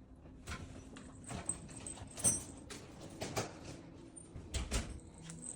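Cats moving about on the floor: a handful of irregular light knocks and scuffles, about one a second.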